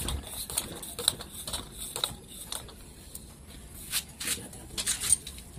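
Scattered light clicks and knocks as a pipe is worked down into a flanged pipe fitting, with a few sharper taps near the end.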